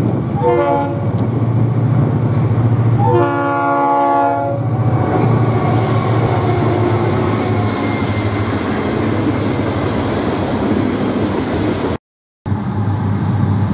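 Florida East Coast diesel locomotive sounding its horn twice, a short blast and then a longer one about three seconds in, over the steady drone of its diesel engine and the rumble of the train rolling past. The sound cuts out briefly near the end, then the rumble returns.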